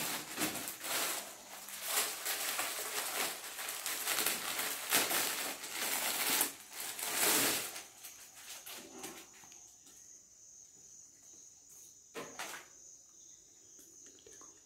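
Cloth and plastic packaging rustling as a pair of track pants is taken out and unfolded, dense for about eight seconds, then quieter handling with a soft knock near twelve seconds.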